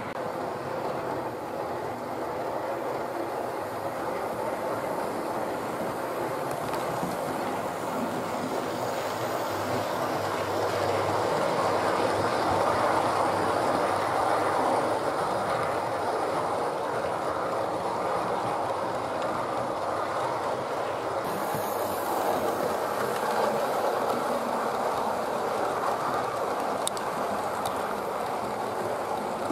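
OO gauge model train running along the track: a steady rumble of wheels and motor that grows louder about twelve seconds in as the coaches pass close by.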